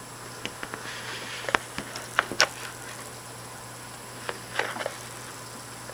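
Heavy thunderstorm rain as a steady hiss, with scattered sharp taps and clicks, several close together about two seconds in and again near the end.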